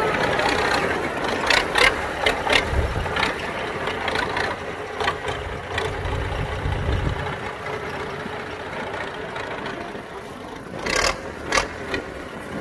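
Belarus tractor's diesel engine running as it pulls a loaded cassava trailer through mud, getting quieter as it moves away. Several sharp knocks sound in the first few seconds, and two more near the end.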